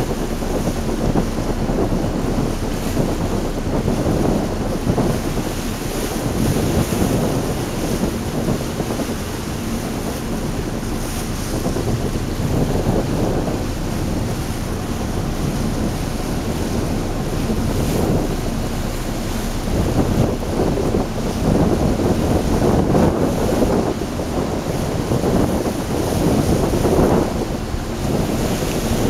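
Wind buffeting the microphone, a loud, rumbling rush that swells and eases in gusts.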